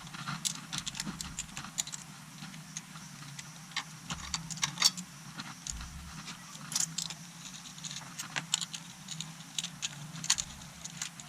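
Scattered metallic clicks and clinks of hand tools and bolts as the bolts of a Suzuki GN motorcycle's engine side cover are loosened and taken out, over a faint steady low hum.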